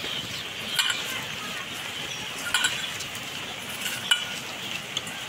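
A hand squishing and mixing moist kakrol (spiny gourd) stuffing in a stainless steel bowl, with a few light clinks against the bowl's metal side.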